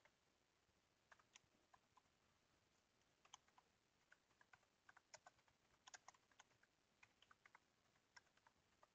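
Faint typing on a computer keyboard: a run of irregular keystrokes starting about a second in.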